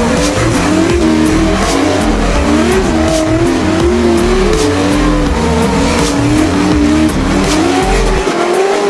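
A Baja trophy truck's engine revving hard, its pitch rising and falling over and over, with the tyres squealing as it spins donuts on pavement.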